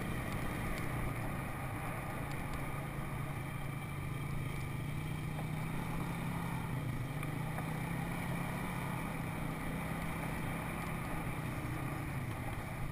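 Four-wheeler (ATV) engine running steadily while riding along a dirt trail, heard from the rider's seat as a constant low engine drone.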